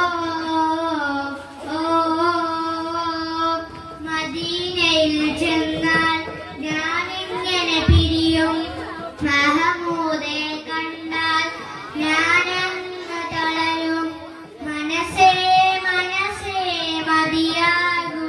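A young boy singing solo into a handheld microphone, holding long notes that bend and waver in ornamented runs, with short breaks for breath.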